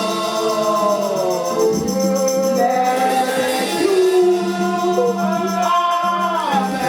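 Gospel singing with instrumental accompaniment: voices carrying a melody over steady held bass notes.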